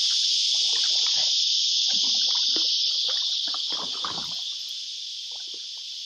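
Cicada chorus droning loudly and steadily, easing off a little from about halfway through, over irregular splashes and knocks of a kayak paddle moving through the water.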